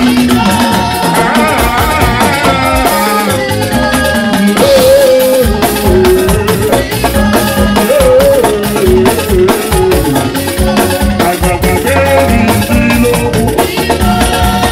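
Live band music: a voice singing a melody over a steady, busy rhythm of drums and percussion.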